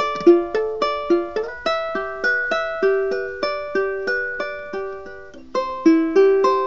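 Solo ukulele, a picked melody of single plucked notes at about three a second, each ringing on. The playing turns softer a little past the middle, then comes back louder near the end.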